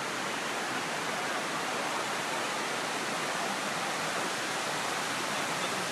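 Water cascading down the walls of a 9/11 Memorial reflecting pool: a steady, even rush of falling water.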